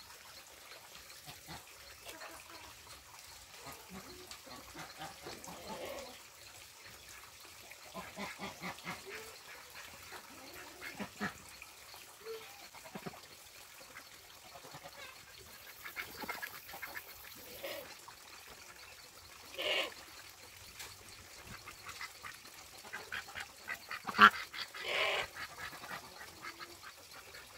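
Domestic waterfowl calling on and off in short calls, with a few louder calls near the end.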